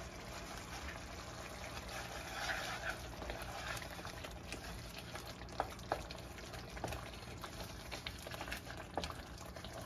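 Wooden spoon stirring a simmering tomato sauce in a nonstick pan, the sauce bubbling softly, with a few light taps of the spoon against the pan about halfway through and near the end.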